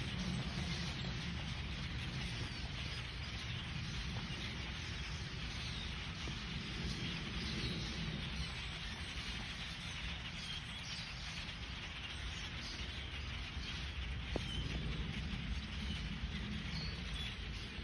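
A huge flock of small birds flying overhead, their many calls merging into a steady, dense din, over a steady low rumble.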